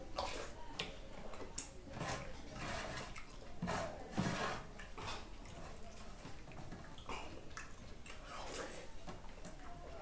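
Eating sounds: curd rice mixed and scooped by hand on a steel plate, and chewed, coming as irregular wet noises that are loudest about four seconds in.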